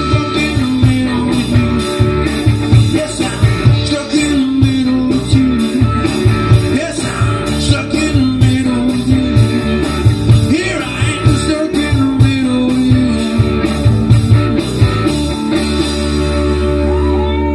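Live rock band, a drum kit, electric guitars and bass with a lead singer, playing the end of a song with a steady beat. Near the end the drums stop and the band holds a final chord.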